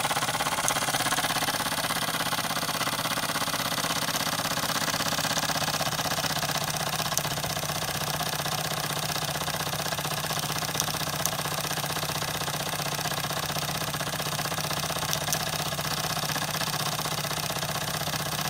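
Wilesco D10 toy steam engine running steadily on solid-fuel-fired steam. Its small oscillating cylinder chuffs rapidly, and the flywheel and belt-driven governor whir, with a few light ticks. Its vibration rattles on the ceramic tile it sits on, which makes it sound louder.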